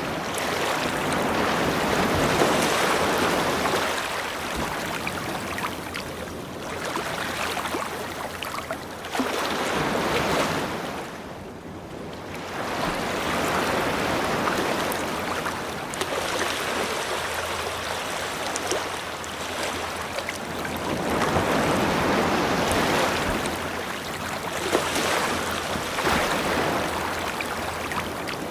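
Ocean waves breaking and washing up a beach, the rushing surf swelling and ebbing in slow surges every few seconds.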